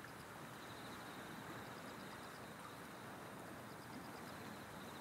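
Night ambience: crickets chirping in short, pulsed high-pitched trills that come and go, over a steady low rush.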